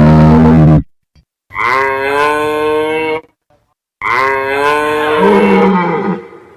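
A loud animal roar ends just under a second in. Then a cow moos twice, two long, drawn-out calls, each a little under two seconds, falling slightly in pitch.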